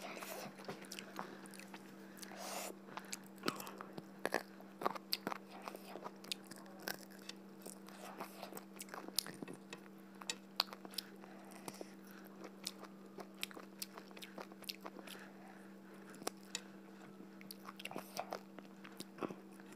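Close-miked eating of duck curry: chewing and biting, heard as many short wet mouth clicks and smacks, over a steady low hum.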